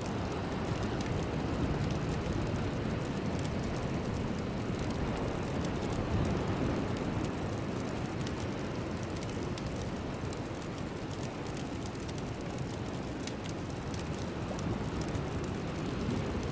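Steady rushing noise with faint scattered ticks on top, a rain-like ambient bed.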